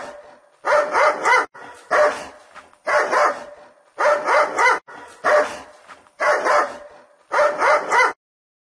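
A dog barking in quick runs of two or three barks, about one run a second, breaking off abruptly near the end.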